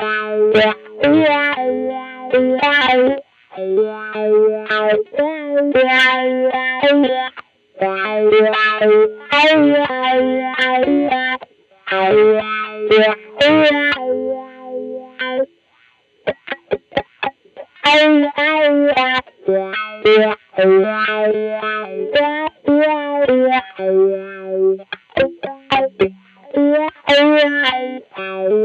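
1994 Mexican-made Fender Stratocaster electric guitar fitted with GFS Jimi reverse pickups, played through effects: phrases of held notes and chords with vibrato, separated by short pauses. About halfway through comes a run of quick, short picked stabs before the phrases resume.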